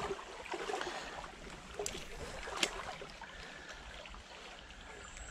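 Shallow stream's water running over gravel in an even, low rush, with two short sharp clicks about two and two and a half seconds in.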